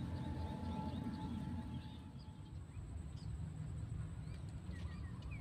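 Outdoor ambience of a steady low rumble, like wind on the microphone. From about two seconds in, short falling bird chirps come now and then, more often near the end.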